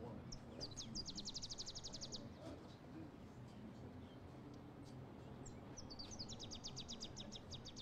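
A bird singing two rapid trills of high, evenly repeated notes, about a second in and again near the end, over faint outdoor background noise.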